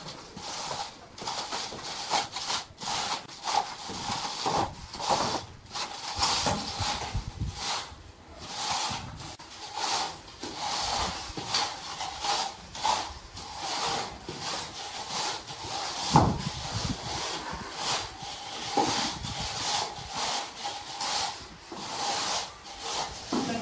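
Metal screed straightedge scraping over a damp sand-and-cement mortar bed, drawn back and forth in repeated rasping strokes about one or two a second as the floor bed is levelled.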